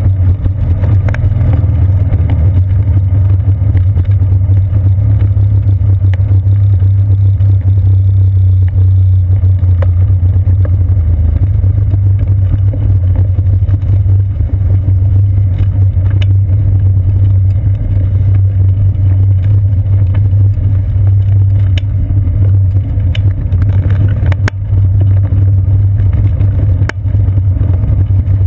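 Steady, loud low rumble and hum of a bicycle rolling along a wooden boardwalk, carried up the seat post into a seat-post-mounted GoPro, with scattered short clicks and rattles.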